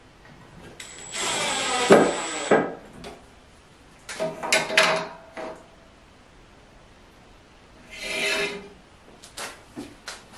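A cordless drill-driver runs for about two seconds with a thin high whine, driving a screw through a steel table leg's mounting plate into the wooden slab. Then comes a series of short scraping bursts as the metal leg is shifted on the wood, and a few light knocks near the end.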